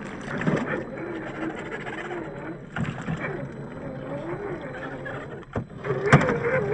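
RC crawler's RC4WD 20T brushed electric motor and drivetrain whining, the pitch rising and falling with the throttle, as the truck wades through river water, with a few sharp knocks.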